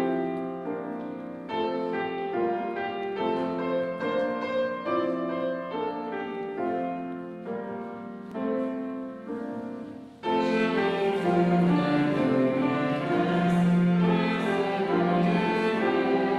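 Hymn tune played on piano in slow, separate chords. About ten seconds in, a louder bowed string line joins with long held notes.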